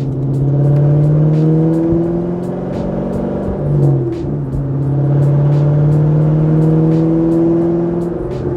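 C6 Corvette V8 with a muffler delete, straight-piped, heard from inside the cabin while driving: a steady droning exhaust note that climbs slowly in pitch, drops briefly about three and a half seconds in, then climbs again.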